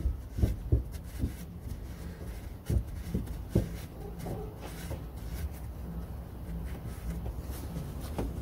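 A rag wiping and rubbing around the plug hole on a Mercedes Sprinter's manual gearbox casing. There are a few soft knocks from handling in the first four seconds, over a low steady hum.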